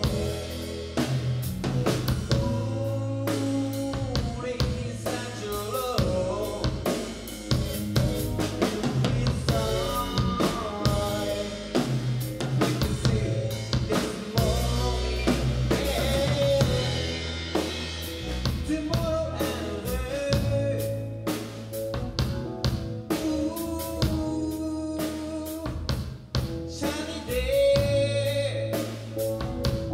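Live band playing: electric bass, drum kit and keyboard together, with a steady drum beat and bass line under a melodic keyboard part.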